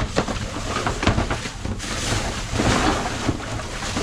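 Rummaging through trash in a dumpster: several sharp knocks and clatters, then a swell of rustling noise in the middle.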